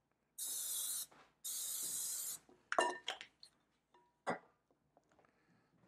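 Two spritzes of aerosol cooking spray onto the plates of a waffle maker, each about a second long. A few light clinks follow, as a ladle knocks against a glass batter bowl.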